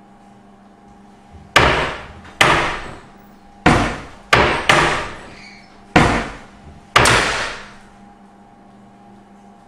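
A wooden door with glass panes banging shut against its frame, seven loud bangs at uneven spacing, each with a long ringing decay and the glass rattling.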